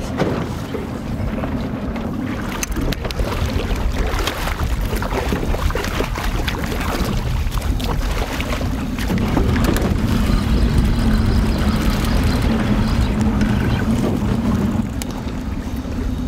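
Wind buffeting the microphone and a choppy sea slapping and splashing against a small aluminium boat's hull, with a steady low hum underneath that grows louder in the second half.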